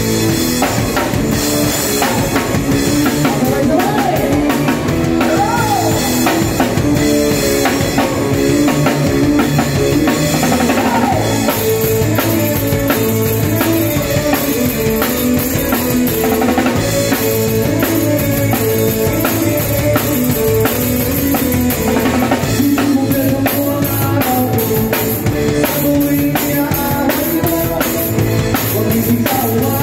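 Acoustic drum kit played live with a band, heard close up: a steady beat of kick drum, snare and cymbals over bass and other band instruments.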